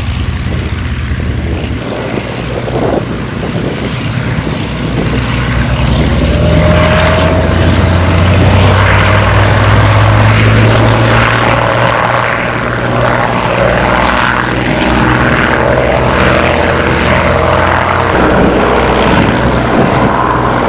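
Propeller warbird engines: the Avro Lancaster's Rolls-Royce Merlin V12s running on the runway, then a Hawker Hurricane's Merlin V12 opening up to full power for takeoff. The sound builds over the first several seconds and is loudest about eight to eleven seconds in.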